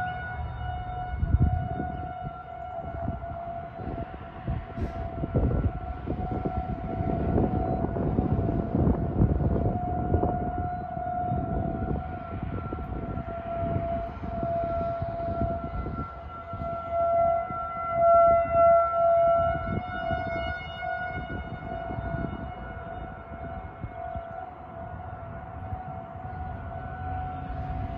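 Outdoor civil defense siren sounding a steady single-pitch tone for a tornado warning drill, swelling louder and fading slightly. A gusty low rumble runs beneath it.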